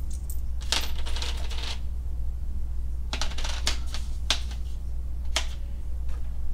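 Small steel hardware (washers and bolts) clinking in a parts tray as a hand picks through it: a handful of separate metallic clinks, with a short rustle about a second in. A steady low hum runs underneath.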